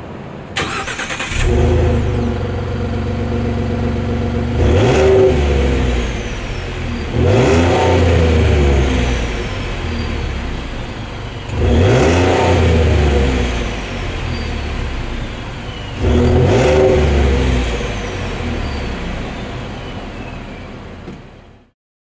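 A 2017 Ford F-150 pickup's engine, heard at the tailpipe, is warm-started: a brief crank, it catches and idles, then is revved four times, each rev falling back to idle. After each rev a faint high whistle dies away.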